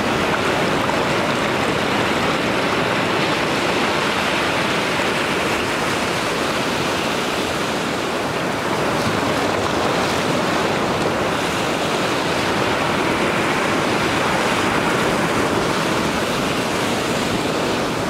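Ocean surf at the water's edge: waves washing up over the sand in a steady rush of foam.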